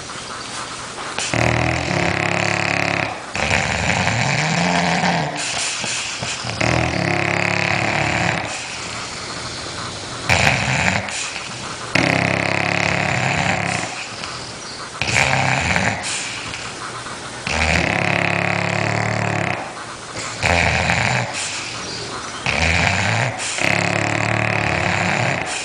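Heavy snoring of a sleeper in deep sleep: a loud, rasping snore of one to two seconds comes every two to three seconds, with quieter breaths between.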